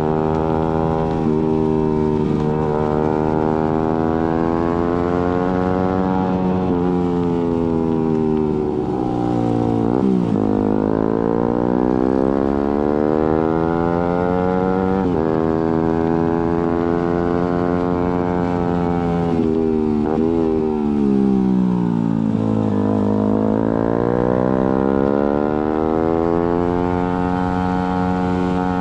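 Suzuki GSX-R150's single-cylinder engine through an aftermarket Prospeed exhaust, accelerating through the gears with quick upshifts, each a sudden drop in pitch. It slows with falling revs about a third of the way in and again about two-thirds in, then pulls up through the gears once more.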